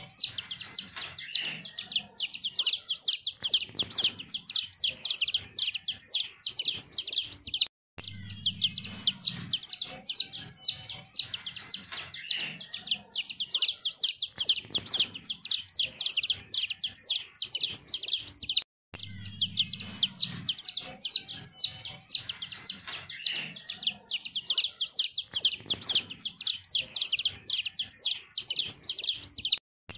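Baby chicks peeping: a dense, continuous run of rapid high-pitched peeps from several chicks at once, cutting out briefly about every eleven seconds.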